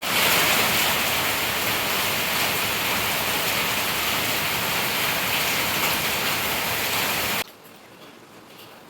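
Steady rain falling, a loud, even hiss; it cuts off abruptly about seven and a half seconds in, leaving a much quieter background.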